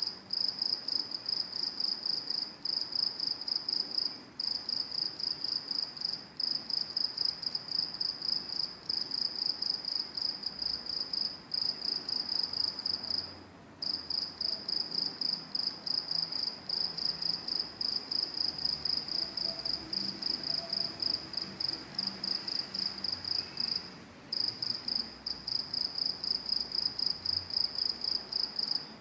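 Crickets chirping: a steady, high-pitched, rapidly pulsed trill that breaks off briefly about thirteen seconds in and again about twenty-four seconds in.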